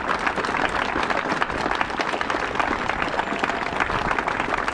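A crowd applauding, a dense, steady patter of many hands clapping.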